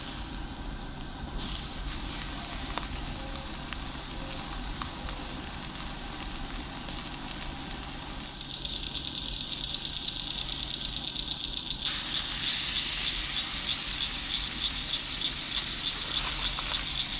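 Ribeye steak's fat cap searing in a hot, oiled cast iron skillet: steady sizzling that gets louder about twelve seconds in.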